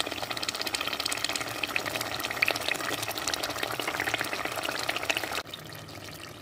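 Chicken breast pieces sizzling in hot oil and spice paste in a cooking pot as they are browned in the masala: a dense crackling hiss that drops abruptly to a quieter hiss about five seconds in.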